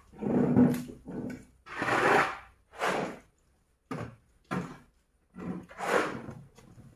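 Shovel scraping wet manure off a barn floor and tipping it into a wheelbarrow: a run of short scrapes and slaps, about one a second.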